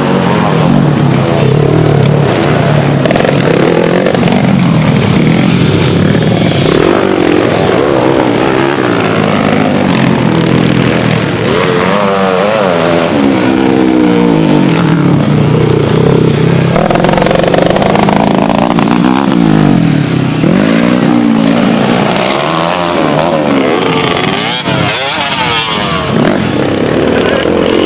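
Two-stroke Kawasaki Ninja 150 race motorcycle engines running hard at high revs. The pitch climbs and drops again and again through gear changes, with more than one engine heard at once.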